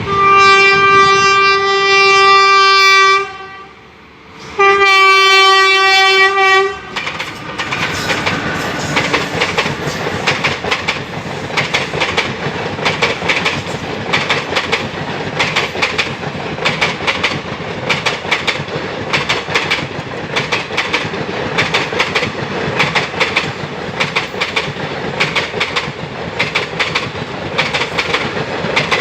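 WAP4 electric locomotive horn sounding two long blasts, then ICF passenger coaches' wheels clattering in a steady clickety-clack rhythm over the rail joints as the express passes.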